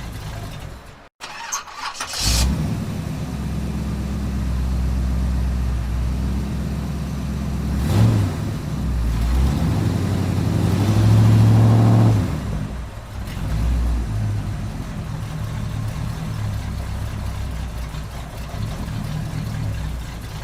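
Car engine cranked by its starter and catching after a moment of silence, then idling, with a quick throttle blip near the middle and a longer rev that rises and falls before it settles back to idle.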